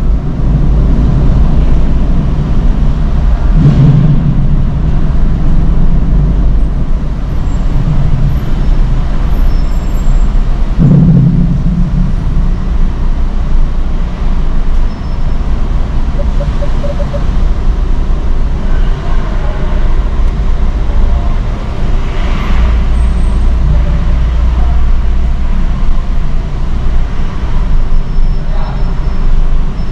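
Car driving slowly through a ferry's enclosed vehicle deck, heard from inside the car: a steady low rumble of engines, with two louder swells about four and eleven seconds in.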